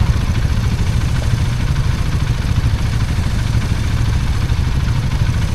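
Hero Hunk 160R 4V's single-cylinder engine running steadily while riding, with a constant rush of noise over it.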